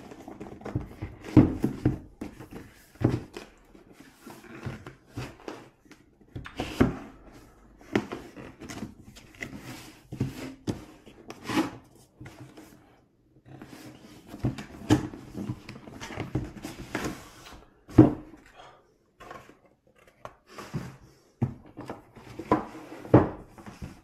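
Cardboard packaging being handled and opened on a wooden table: irregular knocks, scrapes and rustles of the box and its cardboard insert, with a few sharper knocks among them.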